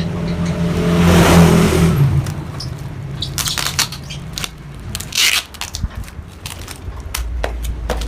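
Yamaha RX-King single-cylinder two-stroke engine running through a hollowed-out (bobok) exhaust, swelling briefly about a second in. From about three seconds in come a run of sharp, irregular clicks and crackles, and a low steady hum returns near the end.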